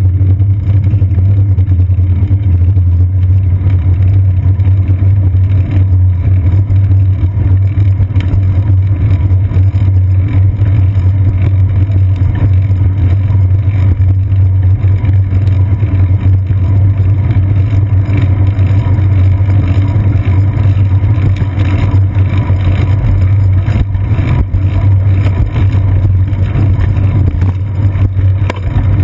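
Steady, loud low rumble of a bicycle rolling over city pavement, with road vibration and wind carried through a seat-post-mounted action camera.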